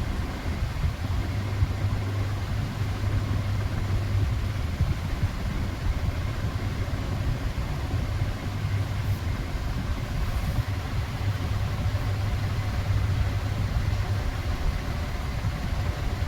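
A steady low hum that holds unchanged throughout, with no cat calls in it.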